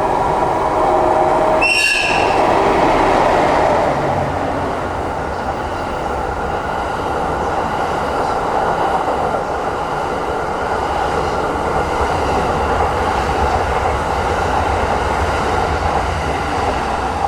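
EF81 electric locomotive train running on the rails, a steady rumble and rail noise. A short, high tone sounds about two seconds in.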